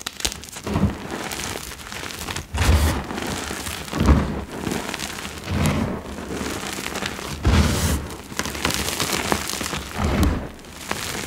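Hands scooping, squeezing and dropping crushed gym chalk powder, a soft crunching of small chalk lumps mixed with the hiss of falling powder. A dull low thump comes every couple of seconds as the hands press down into the pile.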